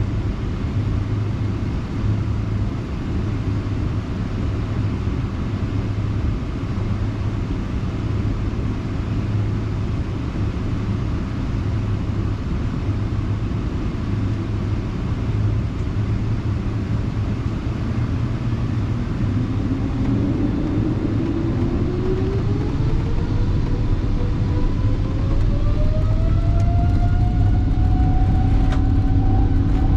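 Airliner cabin noise from inside the cabin: a steady low rumble, then, about two-thirds of the way through, the jet engines spool up with a whine that rises in pitch and levels off near the end.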